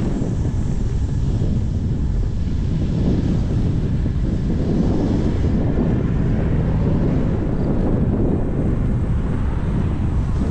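Wind buffeting the microphone of a camera riding on a moving bicycle, a steady low rumble.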